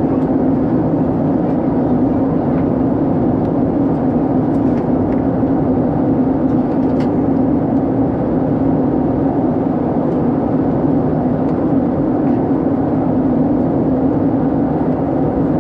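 Steady in-flight cabin noise of an Airbus A320-214: the drone of its CFM56 engines mixed with rushing airflow, holding even with a strong low hum throughout.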